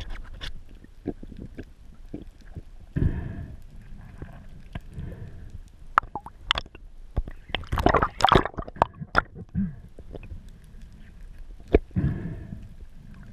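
Underwater handling noise: scattered clicks and knocks, a thick run of them about eight seconds in, with short rushing swishes about three seconds in and near the end, as a speared dentex is gripped and the spear shaft moves through it.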